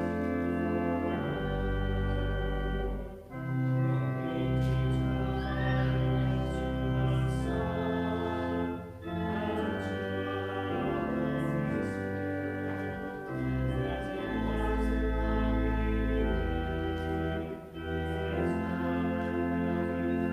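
Church organ playing a hymn in sustained chords, with voices singing along. There are brief breaks between phrases.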